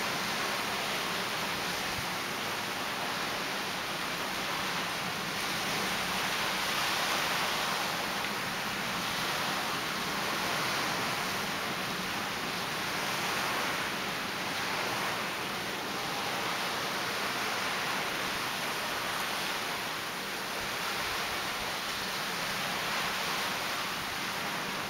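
Ocean surf breaking on a coral reef: a steady rush of broken water that swells and eases every few seconds.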